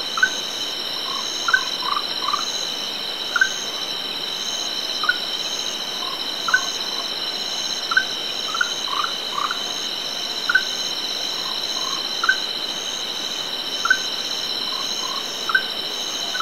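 Orange-bellied tree frogs (Zhangixalus aurantiventris) calling at a distance: short single notes about every second and a half, now and then two or three in quick succession, over a steady high-pitched drone.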